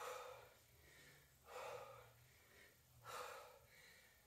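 A woman's faint, heavy breathing while doing push-ups: a short breath about every second and a half, four in all.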